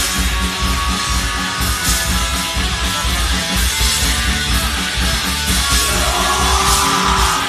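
A crust punk band playing live and loud: distorted electric guitar, bass and pounding drums, with a brighter rising sound entering about six seconds in.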